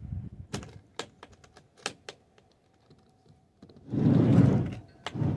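Aluminium carrying case being opened: a series of sharp clicks as its catches are worked in the first two seconds, then a louder muffled rush of handling noise about four seconds in as the lid swings up.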